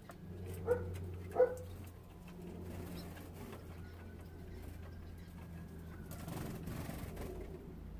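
Young canaries in a cage: two short, loud calls less than a second apart near the start, then faint thin whistles, over a steady low hum.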